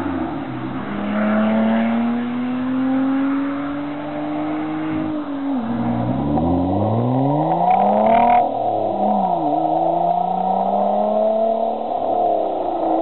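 Lotus Evora's V6 through a Nouvalari Super Sport aftermarket exhaust. It runs with a slowly rising note for about five seconds, then is revved hard, climbing in pitch for about three seconds to a peak around eight seconds in before dropping back and settling to a steady note.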